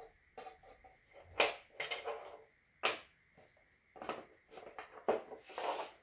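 Zig & Go chain-reaction toy pieces being handled and set down on a wooden floor: irregular light knocks, scrapes and rustles, a few sharper clacks among them.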